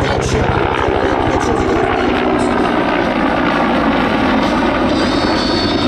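Aircraft passing close by, its engine and propeller making a loud, steady noise with a fast throbbing beat.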